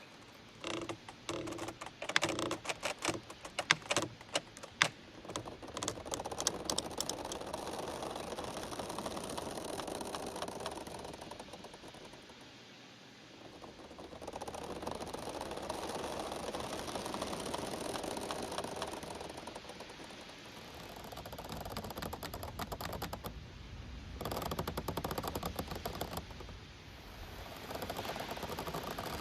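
Giant bamboo stems creaking and rubbing against each other as they sway in the wind. A quick run of sharp clicks and cracks comes first, then long creaking groans that swell and fade every few seconds.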